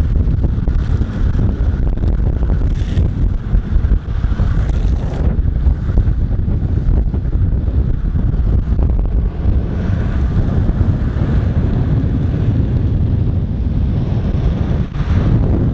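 Loud, steady wind buffeting on a microphone moving at downhill longboarding speed, a low rumbling rush with a fainter hiss above it.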